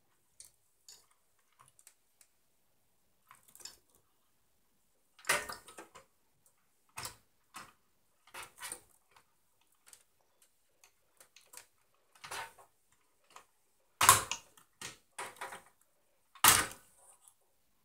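Irregular clicks and knocks of hard parts being handled, with three louder knocks: about five seconds in, around fourteen seconds, and again two seconds later.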